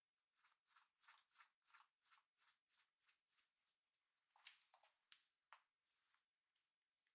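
Faint rustling of long hair being worked during an updo, in quick repeated strokes about four a second, then a few louder strokes and a single sharp click about five seconds in.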